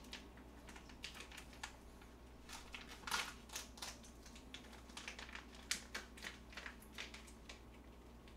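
Plastic packet of shredded mozzarella crinkling in the hands as the cheese is shaken out over the dish: a scatter of small, irregular crackles and clicks.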